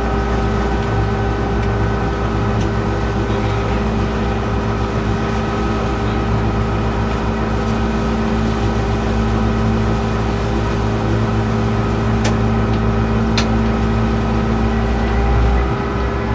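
Diesel locomotive running, heard from inside the cab: a steady engine drone with a low rumble and several steady tones, two faint clicks late on, and the low rumble easing just before the end.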